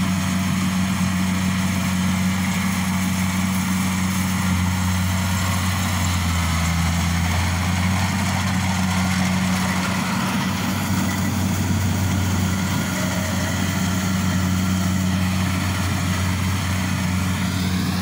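Rice combine harvester running steadily while it cuts standing rice, a constant engine drone with no change in pitch.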